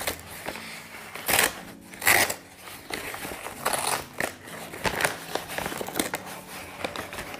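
Brown paper mailer bag being torn open with a pen tip and pulled apart by hand: irregular crinkling and tearing rustles of stiff paper, the loudest about one and a half and two seconds in.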